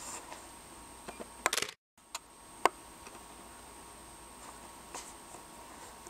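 Mostly quiet room with a steady camcorder hiss and faint whine. A few sharp clicks come around a second and a half in, and the sound cuts out for a moment just before two seconds, then returns. Two more single clicks follow soon after.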